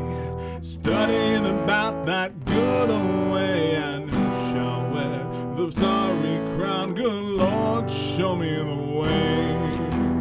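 Guitar music, an instrumental break in a folk hymn: held chords underneath a melody line that slides and bends in pitch.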